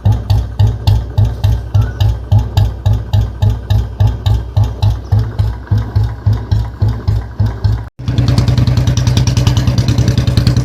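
Royal Enfield Bullet single-cylinder engine with an exhaust modified for a heavy sound, idling slowly with an even thump about three to four times a second. After an abrupt cut about eight seconds in, it runs faster and more continuously.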